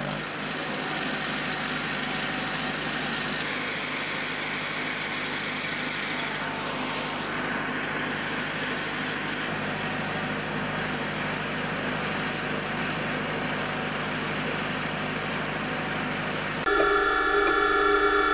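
Steady mechanical running noise of a Pantsir-S1 air-defence vehicle, its power unit and turret drives humming. Near the end it grows louder, with several held tones.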